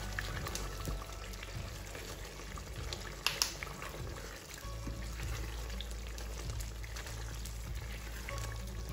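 Background music over a thick sauce bubbling at a simmer in a stainless steel pan while a spatula stirs it, with a couple of sharp clicks a little over three seconds in.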